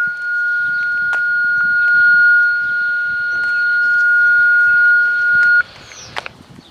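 Dispatch alert tone received over a radio: one long, steady beep that cuts off sharply about five and a half seconds in, followed by a short click. The tone announces the dispatcher's message to all units.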